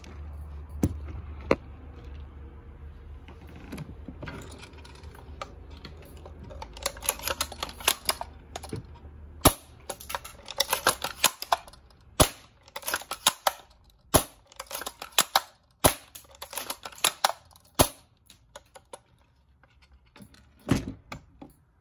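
Cyma VSR-10 spring-powered bolt-action airsoft rifle being test-fired, each shot a sharp snap, about every two seconds through the second half. Quick rattling clicks fill the gaps between shots. A low hum in the first half stops about halfway.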